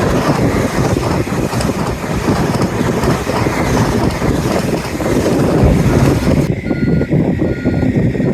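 Train passing at speed on a main line, a loud, steady rush of rail and wheel noise mixed with wind buffeting the microphone. About six and a half seconds in, the sound turns abruptly duller.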